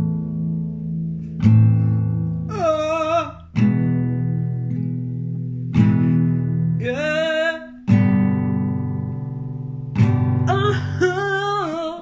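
Acoustic guitar chords strummed once about every two seconds, each left to ring. Three times between the chords a voice sings a long wordless line with wavering vibrato.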